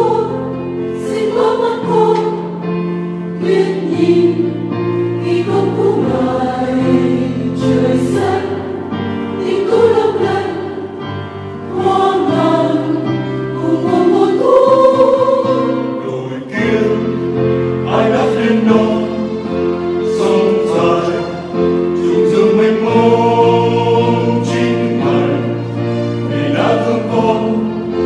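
A church choir singing a Vietnamese Catholic hymn, its voices moving over held low notes that change every few seconds.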